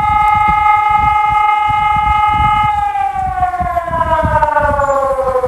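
Digitex DSE600S electronic civil-defence siren sounding a loud tone. It holds a steady pitch for about three seconds, then begins a steady fall in pitch.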